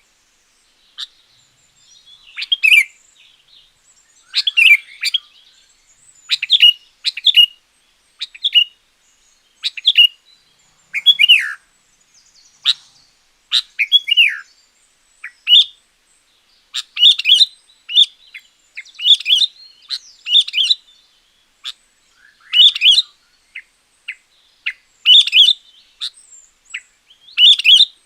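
Sooty-headed bulbul singing: short, loud, bubbling phrases in quick succession with brief gaps, a couple of them sliding down in pitch about halfway through.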